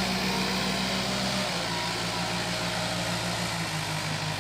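Backhoe loader's diesel engine running steadily, its note shifting slightly about a second and a half in.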